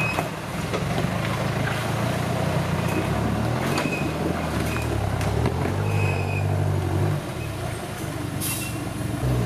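Roll-caged off-road 4x4's engine revving up and down repeatedly under load as it crawls over creek boulders and up a steep bank.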